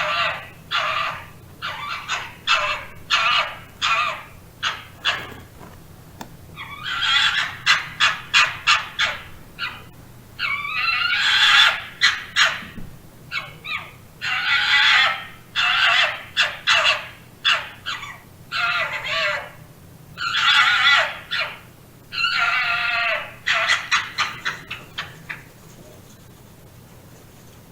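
Fox calling: runs of short, quick, high-pitched calls alternating with several longer calls of about a second each with a wavering pitch. The calls stop about two seconds before the end, leaving a faint hiss.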